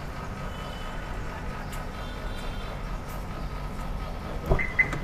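Two quick mechanical clicks from the car's front door handle and latch as it is pulled open, near the end. Under them is a steady low rumble.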